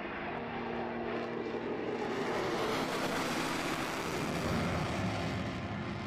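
Fighter jet climbing out with its afterburner lit: a steady jet roar that builds to its loudest about four and a half seconds in and then eases slightly.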